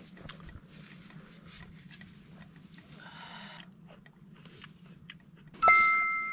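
Quiet clicks and rustling of eating and handling things, then near the end a single sharp clink of tableware that rings on for about a second.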